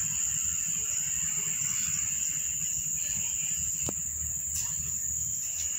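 Crickets chirring as a steady high-pitched background drone over a low rumble, with one faint click about four seconds in.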